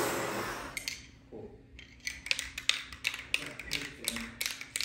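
Shop vacuum running, dying away within the first second. Then light, irregular clicks and taps, several a second.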